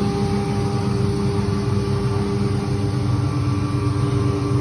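CNC router running steadily: a continuous mechanical drone with several steady tones held throughout.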